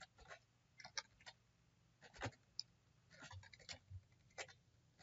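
Faint, irregular clicking of computer keyboard keys being typed.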